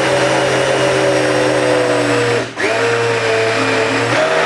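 Countertop blender puréeing soaked sunflower seeds with liquid into a thick paste. The motor's pitch drifts slowly down, cuts out briefly about halfway, then comes back and runs on, stepping up a little near the end.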